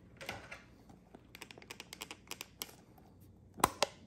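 A plastic ink pad case being handled with a run of light clicks and taps, then two sharper clicks close together near the end as its hinged lid is snapped open.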